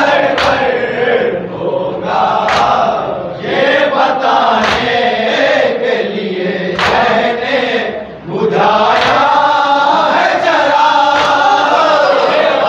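A group of men chanting a mourning salam (nauha) together. Sharp unison slaps of chest-beating (matam) fall about every two seconds, keeping time with the chant.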